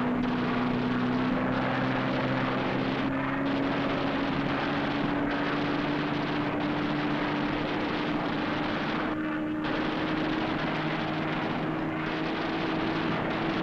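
Aircraft engine droning steadily, its pitch rising slowly throughout, with a few brief dips.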